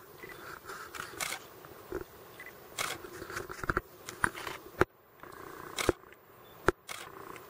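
Several sharp camera shutter clicks, spaced irregularly and most distinct in the second half, over low rustling and crackle.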